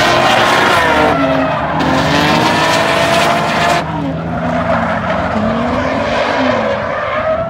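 Drift cars on track: engines revving up and down while tyres squeal and skid, in two long squeals with the second ending about four seconds in, followed by engines alone.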